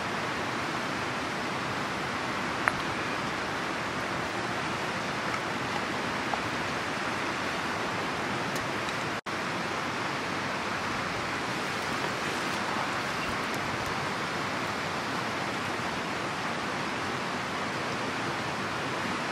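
A steady rushing hiss, with a few isolated sharp pops from a burning wood campfire. The sound drops out for an instant about nine seconds in.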